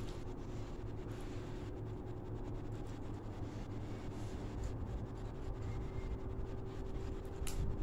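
Fingers mixing rice and vegetables on a ceramic plate, a soft scratching and rubbing against the plate, over a steady low hum, with one sharper tick near the end.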